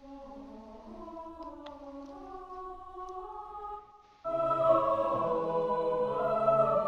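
MuseScore 4's sampled choir sound bank playing back a four-part SATB choral score: sustained sung notes from a few parts, then more voices, including a low part, come in much louder about four seconds in.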